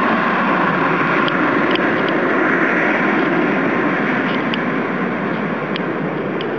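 Boeing 757 jet airliner's engines making a steady rushing roar as it passes on landing approach, fading gradually as the plane moves away toward touchdown.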